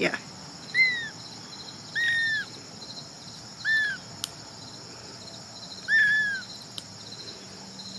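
Ragdoll kitten mewing four times, short high rising-and-falling mews, while its claws are being clipped. One sharp click of the nail clipper snipping a claw about four seconds in, with steady cricket chirring behind.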